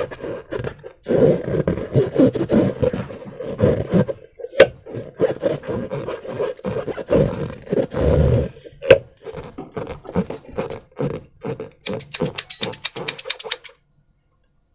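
Rubbery buzzing and squelching as slime and air are squeezed through a balloon, in choppy bursts with sharp clicks. Near the end it turns into a fast rattling flutter of about a dozen ticks a second, then stops.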